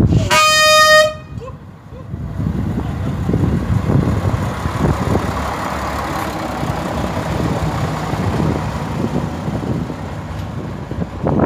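Horn of an MAN railbus giving one short toot of just under a second, a single steady note. It is followed by a steady low rumble with wind noise on the microphone.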